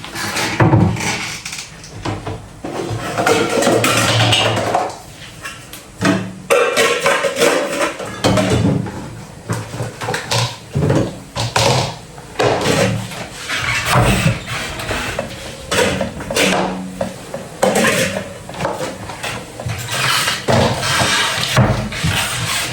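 Kitchen clatter: dishes, pots and cutlery knocking and clinking in irregular bursts as things are moved about and put away.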